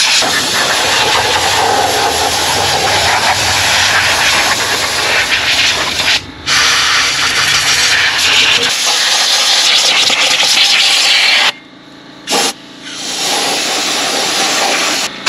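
Compressed-air blow gun hissing as it blows grit and dust off an engine, with a short pause about six seconds in and a couple of brief breaks around twelve seconds.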